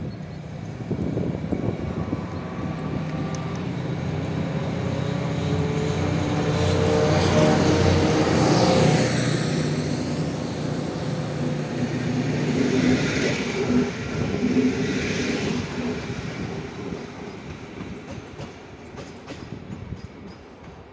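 Diesel locomotive hauling a passenger train passes close by: the engine drone builds to its loudest about eight seconds in. The coaches then rumble and clatter over the rail joints with a high wheel squeal now and then, fading away as the train leaves.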